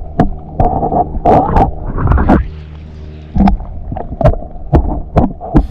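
Irregular splashes and knocks in shallow creek water, about a dozen in a few seconds, as a small creature is put back into the creek, over a steady low hum.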